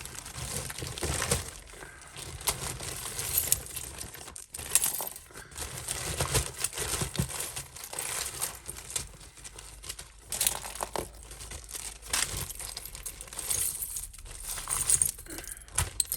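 Costume jewellery being handled and sorted by hand: metal and glass pieces clinking and chinking as they are picked up and dropped, with plastic bags rustling and crinkling throughout.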